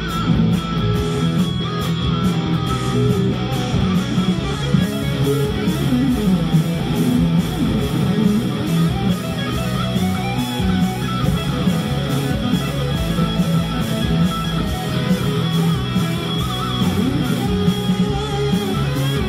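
Electric guitar playing improvised melodic lead lines over a rock backing track with a steady bass line.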